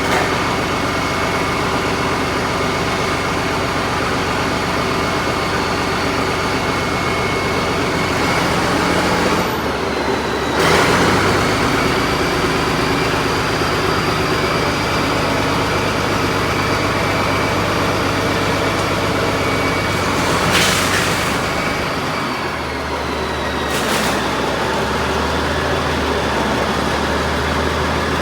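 Heavy vehicle engine running steadily, its pitch shifting a couple of times, with a few short noise bursts partway through.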